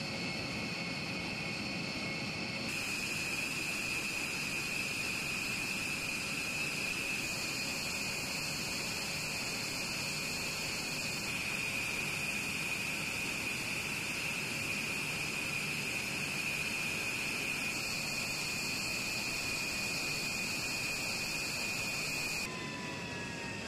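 A B-1B Lancer's General Electric F101 turbofan engines running on the ground: a steady high-pitched whine over a broad rush of noise, its tone shifting slightly a few times.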